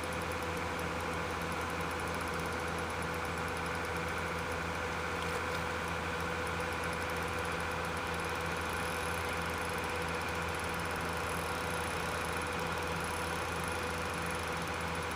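A steady mechanical hum, like an engine or machine running, holding the same low drone and pitch without change.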